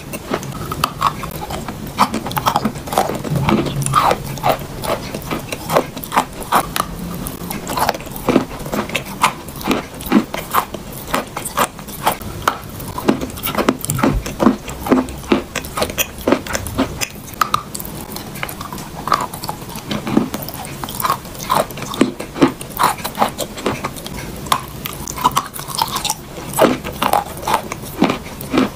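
A lump of cream-coloured eating chalk being bitten and chewed: a dense, irregular run of sharp crunches and crumbling clicks.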